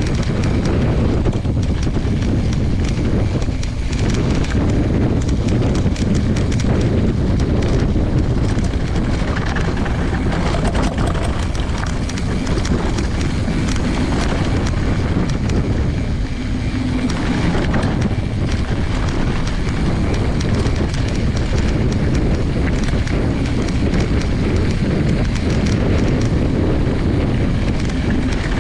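Knobby mountain bike tyre rolling over dirt and loose gravel, with a steady clatter of small knocks from the bike rattling over the stones and wind on the microphone.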